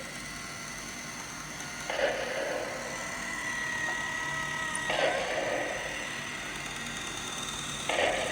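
Steady mechanical running noise with a thin whine, broken by three short louder bursts about three seconds apart.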